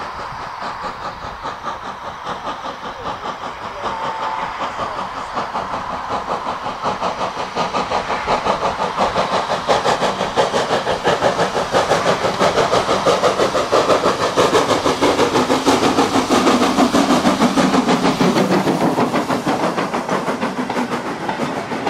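Steam-hauled train on the move, a fast, even rhythm of beats over a steady hiss, growing louder over the first two thirds and staying loud near the end.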